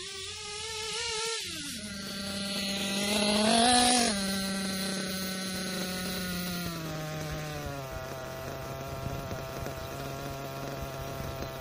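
Kyosho KE25 nitro engine in an RC truggy coming back under throttle, loudest about four seconds in as it pulls up, then dropping to a steady idle about eight seconds in. The engine is being broken in by heat cycling, with three-quarter-throttle passes and idling between them.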